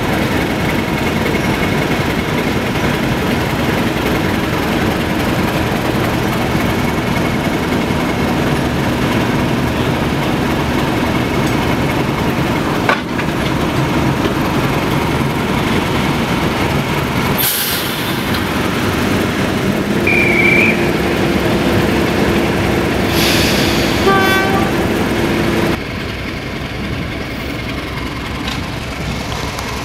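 British Rail Class 31 diesel locomotive idling steadily at the platform. About two-thirds of the way through come a short high whistle and a brief horn sound. Near the end the engine drops to a lower level.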